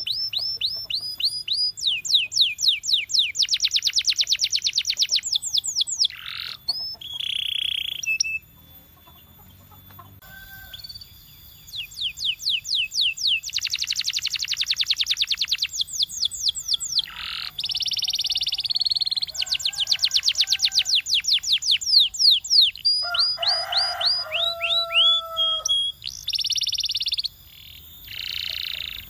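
Domestic canary singing: phrases of fast, evenly repeated high notes and rapid trills, broken by a short lull about eight seconds in, with a few lower held notes near the end.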